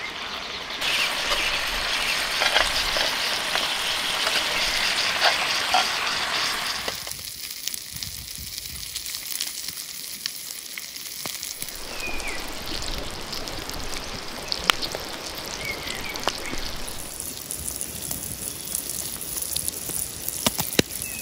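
Bacon sizzling in a cast-iron skillet over a wood fire, then slices of halloumi frying in the same pan. The hiss is steady, with a few sharp pops.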